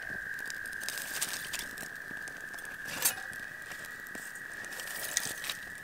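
Small wood fire of birch bark and twigs crackling and popping in a folding stainless-steel twig stove, with a sharper pop about three seconds in. A steady high-pitched drone runs underneath.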